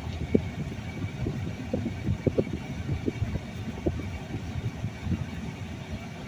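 Low, uneven rumble of vehicle and road noise.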